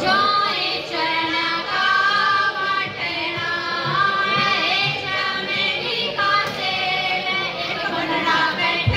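Women's voices singing a Haryanvi folk song in phrases with short breaks, amplified through stage microphones.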